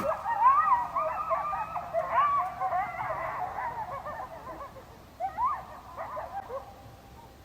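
A group of coyotes yipping and howling together, many high wavering calls overlapping. The chorus thins out and fades, with a few last yips about five to six seconds in before it dies away.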